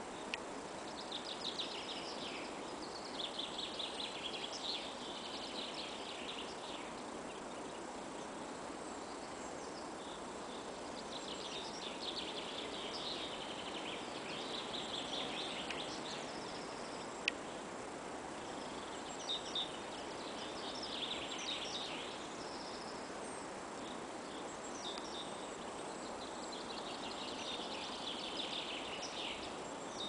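Small songbirds singing in the forest, song phrases of a few seconds coming in four spells, over a steady background hiss.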